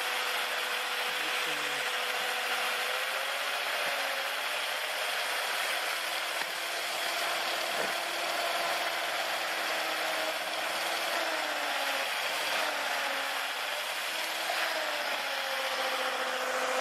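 3D-printed micro Pelton turbine running on a water jet: a steady hiss of spray with a faint whine from its motor-generator that wavers up and down in pitch. It is labouring under the load of two 12-volt heating pads.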